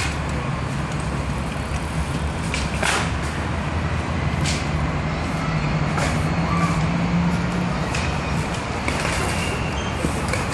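Road traffic: a large vehicle's engine humming steadily, growing a little stronger midway, with several short hisses of air.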